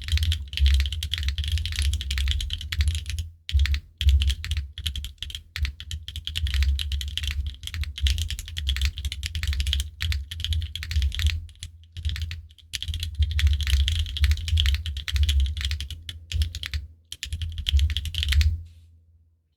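Typing on a Neo65 mechanical keyboard with Dangkeebs Cookies n' Cream tactile switches and GMK keycaps: a fast, continuous run of key clicks and thocks with brief pauses, stopping about eighteen and a half seconds in.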